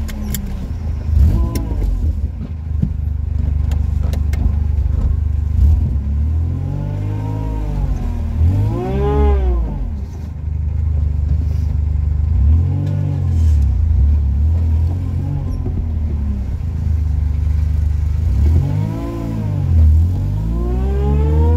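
Supercharged three-cylinder Daewoo Matiz engine heard from inside the cabin while driving. Its revs rise and fall back several times, then climb again near the end. A few clicks sound in the first few seconds.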